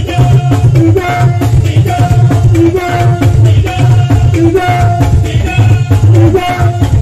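Loud live Fuji band music, with a heavy drum beat and a short melodic phrase repeating about once a second.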